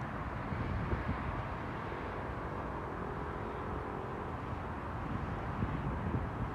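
Outdoor background: wind buffeting the microphone over a steady low rumble, with a faint steady hum for a little over a second in the middle.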